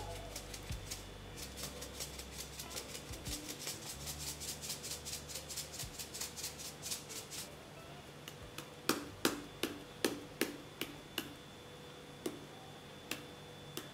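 Seasoning shaken from a small shaker over raw diced fish: a fast run of light clicks and rattles for about seven seconds, then slower, louder taps.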